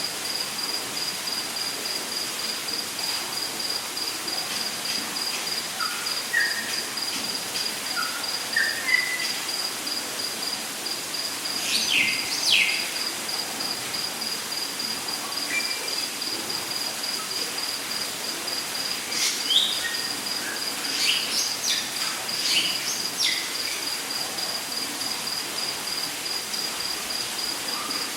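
Rainforest ambience: an insect trills steadily at a high pitch over a soft hiss. Birds call over it, with a few short rising whistles about six to nine seconds in, and quick falling, sweeping calls around twelve seconds and again around twenty seconds in.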